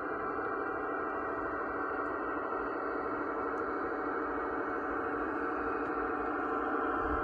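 Steady humming drone of a garden-scale model diesel locomotive running slowly on the layout.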